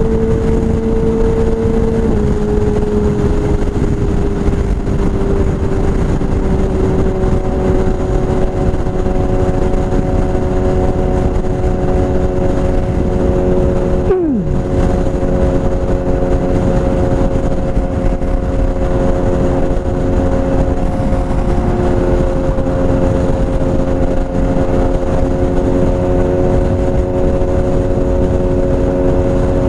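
BMW S1000RR inline-four through a full Akrapovič exhaust, running at a steady engine speed. The pitch steps down a little about two seconds in, and about halfway through the sound briefly dips with a quick drop in pitch before settling at a new steady note.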